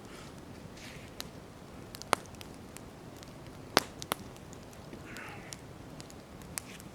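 Wood campfire crackling, with scattered sharp pops; the loudest pop comes a little under four seconds in, with another just after it, and a brief soft hiss follows about five seconds in.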